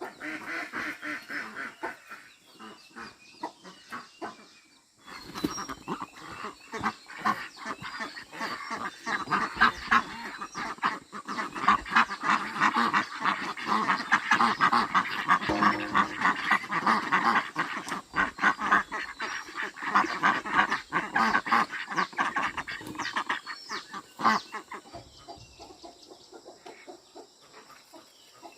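Many fowl calling at once, a dense chatter of short honking calls. They pause briefly about five seconds in, build to their loudest through the middle, and thin out near the end.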